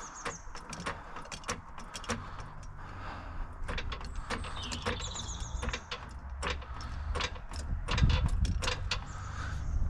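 Trolley jack being worked to lift the front of the car: irregular metallic clicks and short squeaks, with a low steady hum underneath that grows stronger after a couple of seconds.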